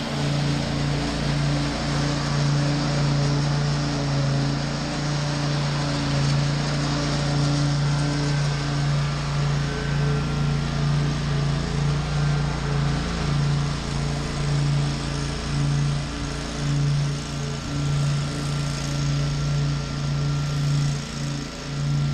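Zero-turn riding mower engine running steadily while mowing, with a constant low drone.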